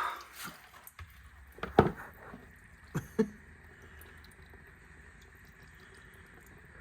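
A few short sharp knocks and clicks: one about two seconds in and a pair about three seconds in, with fainter ticks between. Then only a faint steady background.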